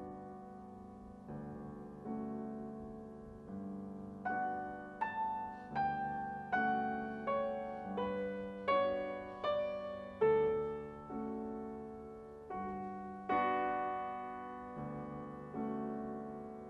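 Solo piano playing a slow, gentle melody. Single notes are struck and left to ring and fade; the notes come faster through the middle stretch, then slow again.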